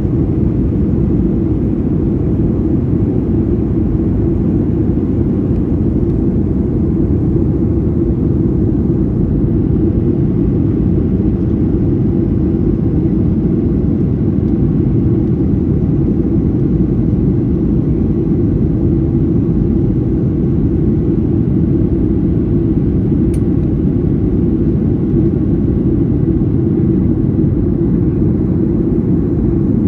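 Steady low drone in the cabin of a Boeing 737-800 from its CFM56-7B turbofan engines and airflow, with a faint single tick about two-thirds of the way through.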